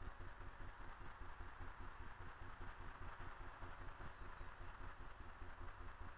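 Faint outdoor background noise: a low, fluttering rumble under a distant hiss that swells slightly midway, with a thin steady high-pitched whine.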